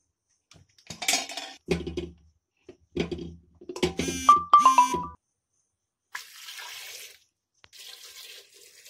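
Potatoes dropped one after another into an aluminium pressure cooker, each landing with a thud and a metallic ring from the pot, loudest in a quick run of knocks about four seconds in. Then water poured into the pot in two pours near the end.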